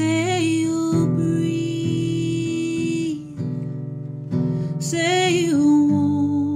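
A woman singing to her own acoustic guitar accompaniment, strummed chords under two sung lines, each ending on a long held note.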